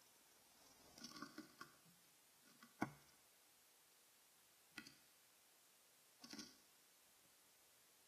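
Faint clicks and knocks of a male house sparrow on a plastic bird-feeder tray: a cluster of taps about a second in, a sharper knock near the three-second mark, and a few more taps around five and six seconds.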